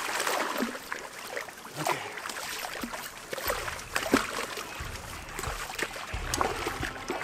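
Water splashing and sloshing with scattered clicks and knocks as a large pike is being landed; a low rumble sets in about halfway.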